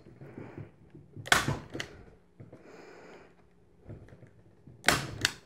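Hand-held staple gun firing twice, about three and a half seconds apart, driving staples through rope into a cat scratching post. Each shot is a sharp snap followed by a lighter click.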